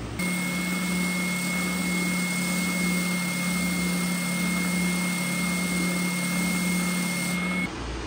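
Benchtop belt sander running steadily with a constant hum and a thin high whine while a wood veneer strip is held against its belt, shaving it down by a few thousandths to fit. The sound cuts off suddenly near the end.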